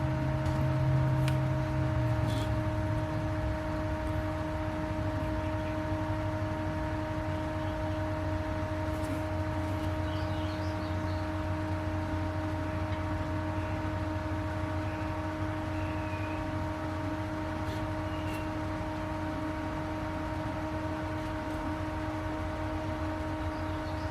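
Nova Viking drill press running steadily at about 550 RPM, an annular cutter boring a hole through steel, with a steady whine over a low hum.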